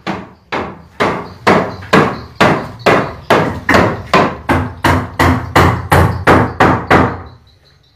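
A hammer striking wood in a steady run of blows, about two or three a second, each with a short ringing decay. The blows stop about seven seconds in.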